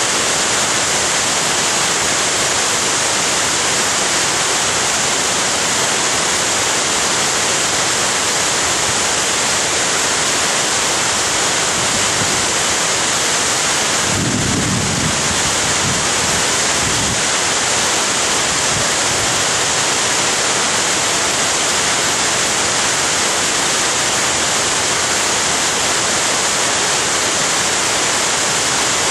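Loud steady roar of a waterfall, Florence Falls, pouring without a break. About halfway through comes a brief low rumble.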